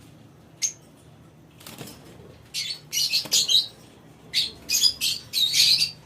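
Lovebirds giving harsh, high-pitched squawks: one short sharp call under a second in, then two bursts of rapid chattering squawks in the second half.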